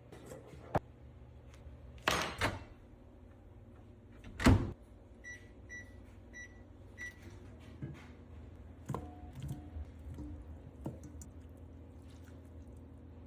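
A pair of knocks, then a loud heavy thunk, followed by four short electronic beeps about half a second apart from a kitchen appliance's control panel, with a few light clatters after.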